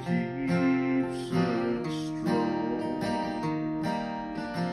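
Steel-string acoustic guitar, chords strummed by hand with the notes ringing between strokes.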